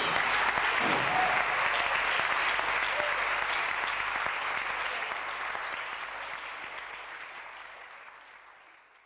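Applause after a song ends, fading out gradually over the last few seconds.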